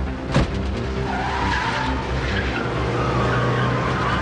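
A car door slams about half a second in, then the car pulls away with a long tire squeal over its engine.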